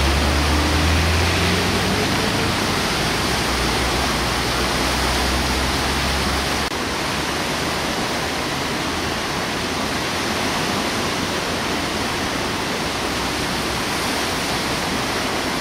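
Swollen river in flood, churning brown water rushing past bridge piers with a steady, loud rushing noise. A deep low rumble under it drops away suddenly about seven seconds in, and the rushing carries on a little quieter.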